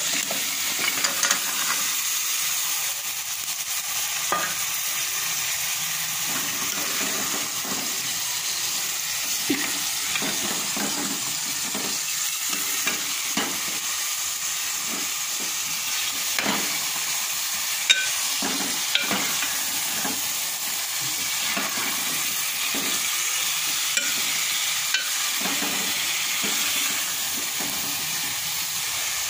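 Chicken masala sizzling and frying in a metal pot while chunks of potato and peas are stirred in with a metal spoon. The spoon scrapes and clinks against the pot now and then over a steady sizzle.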